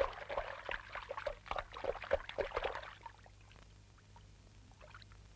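River water splashing and sloshing as a small animal flounders after falling in. The splashing is busy for about three seconds, then dies down to faint rippling.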